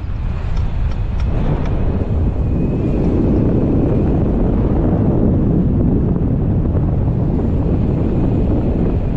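Wind buffeting the microphone of a selfie-stick camera during tandem paraglider flight. It is a steady, deep rush that grows a little stronger about two seconds in.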